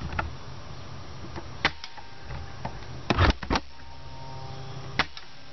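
Airsoft gun, with the camera mounted on it, firing about five sharp, short pops: one a little under two seconds in, three close together just after three seconds, and one about five seconds in. A steady low rumble of handling noise runs underneath.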